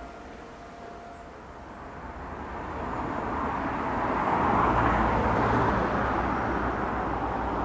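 Diesel locomotive hauling the Sperry rail-testing train, approaching with engine and wheel rumble. It grows steadily louder and peaks about five seconds in.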